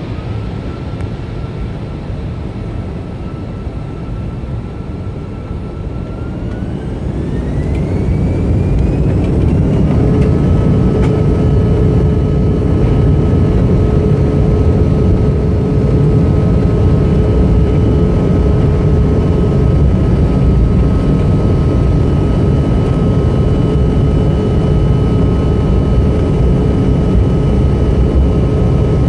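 Jet airliner's turbofan engines heard from inside the cabin over the wing: a steady rumble and whine that rises in pitch about six to ten seconds in as the engines spool up. After that they hold at higher thrust, with a louder rumble and several steady whining tones.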